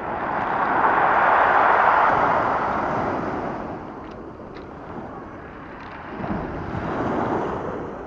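Surf breaking and washing up a pebble beach. One wave surges in and peaks about two seconds in, then fades, and a second wave comes in about six seconds in.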